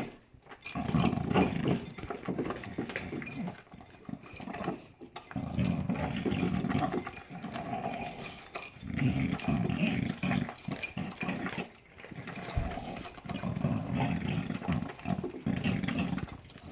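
Dogs eating dry food from their bowls: chewing and licking, with the bowls knocking, in repeated bursts of a second or two.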